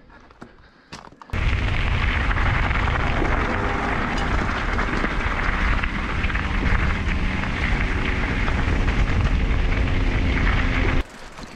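Loud wind buffeting and rumble on the action camera's microphone as the mountain bike rolls downhill over a rocky trail. It starts abruptly about a second in and cuts off abruptly near the end.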